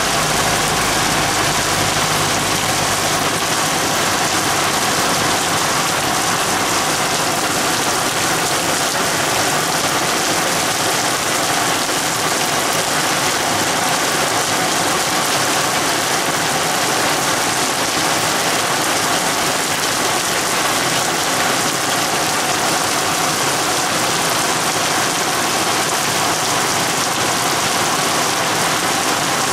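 Heavy rain from a storm cell falling steadily, a dense even hiss of drops striking the ground and puddles.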